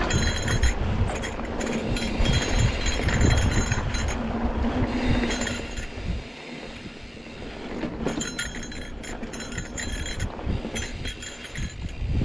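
A Trek Roscoe 8 hardtail mountain bike rolling over a dirt trail: tyres rumbling over rough ground and wind on the microphone. Over this comes a fast, high-pitched buzz of clicking in several stretches, the rear freehub ratcheting while the rider coasts. The clicking stops when the rider pedals.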